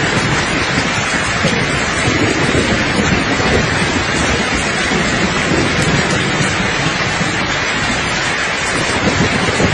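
Steady, dense rain with a low rumble of distant thunder beneath it.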